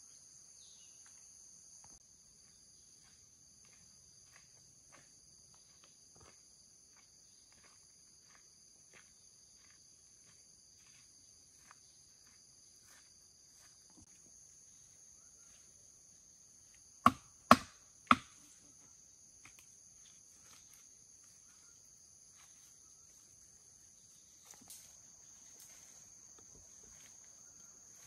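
Steady high-pitched insect chorus, with faint scattered ticks and taps. Three sharp knocks come in quick succession a little after halfway.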